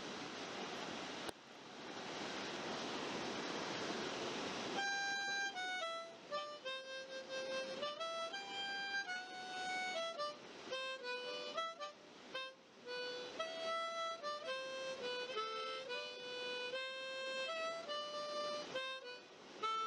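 Water rushing down a small mountain cascade for the first five seconds or so, then background music takes over: a melody of held notes stepping up and down.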